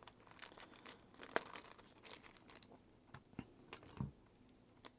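Faint, scattered small clicks and light crinkling from handling small watch parts on the work surface during a battery and O-ring service.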